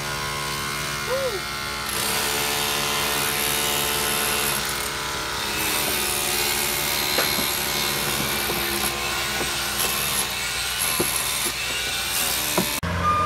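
Loud, steady power-tool and machinery noise from stone being stripped off a masonry tower, with a low hum under it. It cuts off suddenly near the end.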